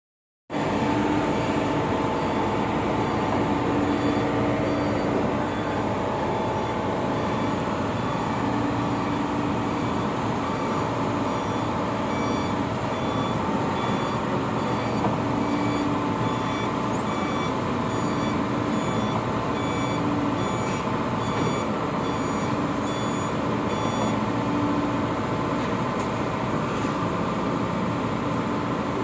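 Komatsu PC78US-6 mini excavator's diesel engine running steadily while the boom and bucket are worked. A warning alarm on the machine beeps over and over from about four seconds in until a few seconds before the end.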